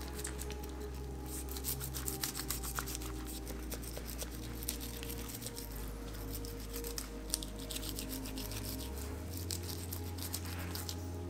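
Fillet knife slicing through a large grouper's flesh and along its bones, giving small scraping and crackling clicks. Under it runs background music with sustained low notes that change a few times.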